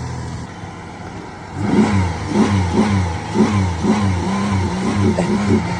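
Truck engine running, then revved in quick repeated pulses, about two a second, bouncing against the rev limiter. The engine has just been revived after sitting.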